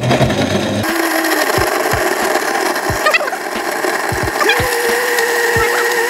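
Bravomix professional blender, inside its closed sound-dampening enclosure, running its 30-second program and crushing ice: a steady whir that starts about a second in, with irregular low knocks from the ice, stepping up in pitch about four and a half seconds in.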